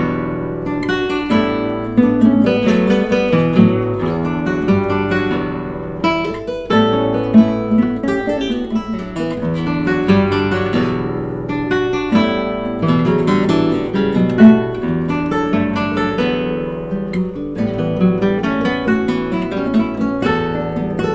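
Two nylon-string classical guitars playing a duet of plucked notes together.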